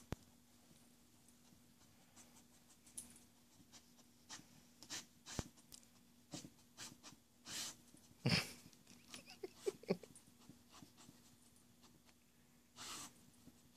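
Dog sniffing at a carpet: a run of short, quick sniffs and snuffles at irregular intervals, with a louder burst of breath about eight seconds in. A faint steady hum lies underneath.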